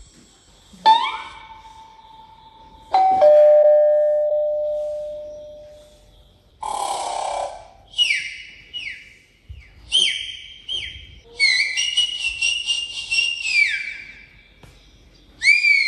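Sound effects played through an AeroBull bulldog-head Bluetooth speaker. First comes a single chime, then a two-note doorbell ding-dong that rings out. After a short burst of noise comes a run of quick falling electronic chirps and beeping alarm-like tones.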